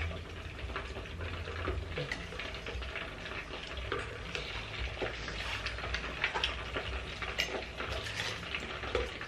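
Hot oil sizzling and bubbling in an electric fondue bourguignonne pot with pieces of meat cooking on fondue forks, with small clinks of forks and knives on plates throughout.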